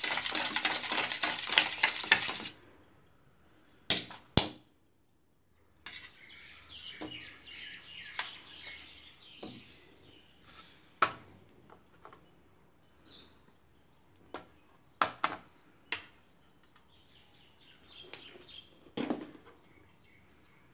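A metal spoon beats eggs in a steel cake tin with rapid scraping and clinking, stopping about two and a half seconds in. After that come scattered single clinks and knocks of the spoon and steel dishes.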